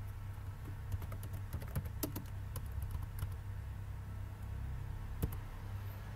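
Keystrokes on a computer keyboard: a quick run of taps as text is typed, then one sharper click near the end.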